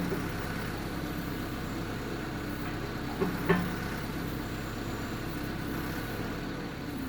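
John Deere 310 backhoe loader's diesel engine running steadily, with two short clanks from the machine about three and a half seconds in.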